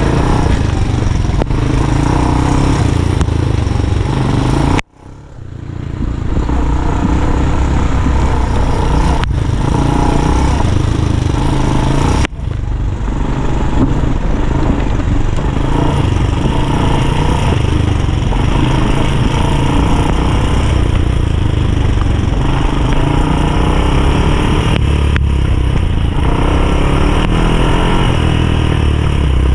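ATV (quad bike) engine running under way, loud and steady. The sound drops out abruptly about five seconds in and swells back over a second or so, with a second short break about twelve seconds in.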